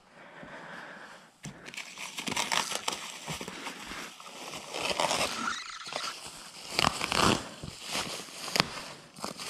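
Bubble wrap and plastic packaging crinkling and rustling in irregular handfuls as a bubble-wrapped balloon tire is pulled out of its cardboard box, loudest about seven seconds in.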